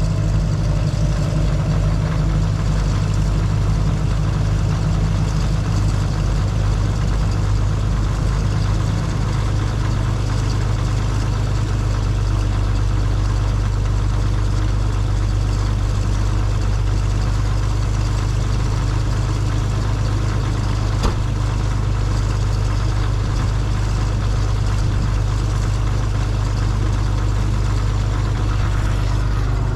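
Heavy diesel engine running steadily at idle, its note shifting slightly lower about nine seconds in.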